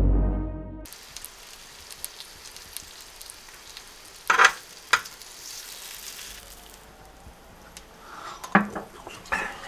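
Pork belly sizzling on a round grill pan: a steady frying hiss. A couple of sharper, louder sounds cut in about four and five seconds in, and a few more near the end.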